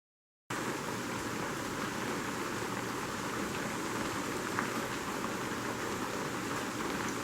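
Steady rain falling on a cabin roof, starting abruptly about half a second in, with a few faint drop ticks over the even hiss.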